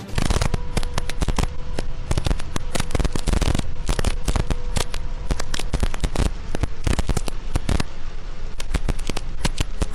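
Heavy rain pelting a vehicle's windshield and body, a dense irregular crackle of drop impacts, with a faint steady whine underneath.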